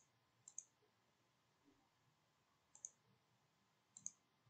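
Computer mouse clicks: four short, sharp double ticks, spread over a few seconds against a near-silent room.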